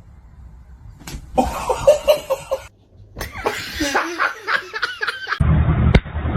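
A person laughing in short rhythmic bursts, heard across abrupt cuts between home-video clips.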